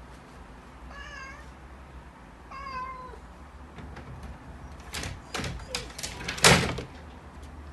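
A cat meowing twice, then a run of knocks and clicks as it climbs a wooden door and paws at the metal lever handle, the loudest knock near the end.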